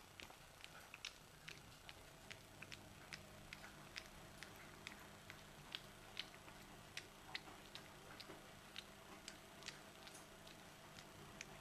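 French bulldog puppy eating wet dog food off a plate: faint, irregular wet clicks and smacks of chewing and licking, a few each second.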